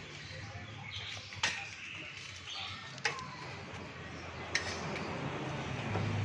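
Metal tools and a metal rod clinking and knocking against the underside of a car as an exhaust is fitted: a handful of sharp single clinks, one to two seconds apart, over a low steady background hum.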